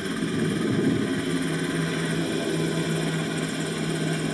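Coast Guard rescue helicopter flying low overhead: the steady noise of its rotor and turbine engines, with a constant drone settling in about a second in.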